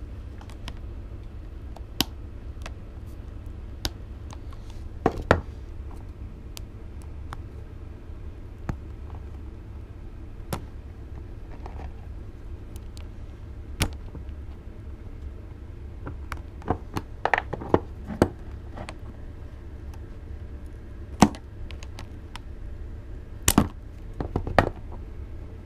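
Pliers clicking and tapping on the master link of a new motorcycle chain while its spring clip is worked at, which won't come off. Irregular sharp metal clicks over a steady low hum.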